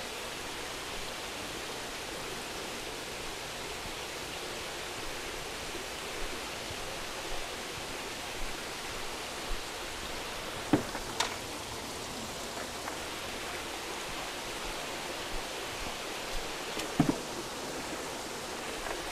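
Steady rush of running water in fish vats and a sump, with a few faint knocks, two of them sharper, a little after halfway and near the end.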